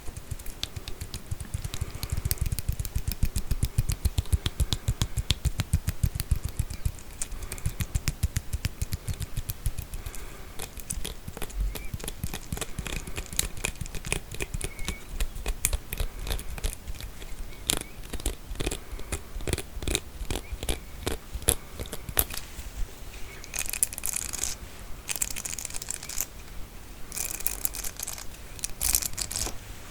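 Combs being handled for ASMR: a long run of rapid clicking as the comb teeth are run over and tapped. Near the end there are two stretches of scratchy rasping.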